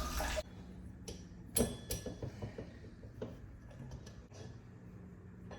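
Scattered sharp clicks and light taps of hand work on a leaking bidet faucet handle, the loudest about a second and a half in, over a faint steady hum. A rushing noise cuts off suddenly just after the start.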